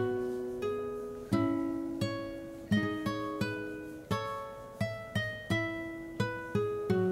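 Background music of plucked acoustic strings: single notes and chords that ring and fade, a new one every half second or so, coming a little quicker near the end.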